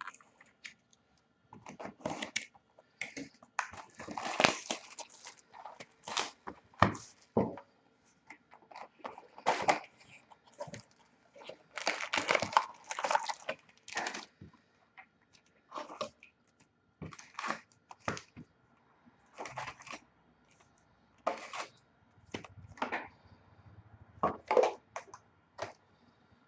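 Foil-wrapped trading-card packs crinkling and rustling in irregular short bursts as they are handled and stacked.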